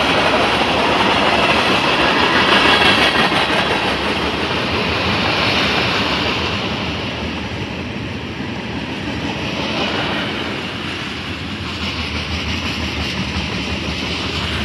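A freight train's cars rolling past close by: the steady rumble and rattle of steel wheels on the rails. It is loudest in the first few seconds, then eases a little.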